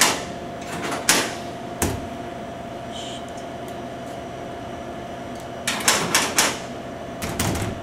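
Sharp clicks and light knocks in small clusters: a couple near the start, a quick run about six seconds in, and a few more near the end. They come from hands on a drink vending machine's buttons and a mobile phone, over a steady hum.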